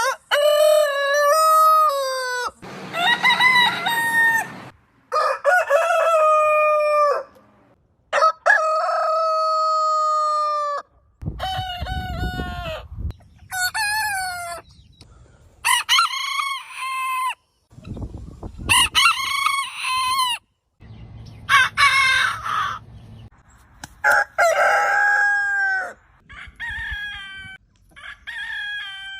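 Roosters crowing one after another, about a dozen crows of one to three seconds each, separated by short gaps and cut off abruptly as if spliced together from different recordings.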